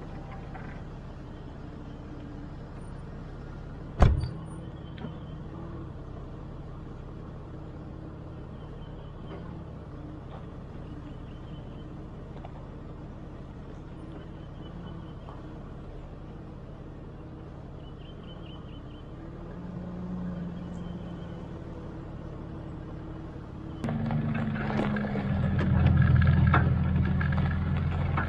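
Car driving with a trailer in tow: steady engine and road noise, with one sharp knock about four seconds in. Near the end the engine sound turns louder and deeper, a steady low hum.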